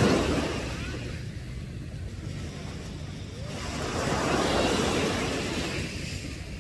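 Small sea waves breaking and washing up a sandy beach, two surges about four seconds apart, with wind on the microphone.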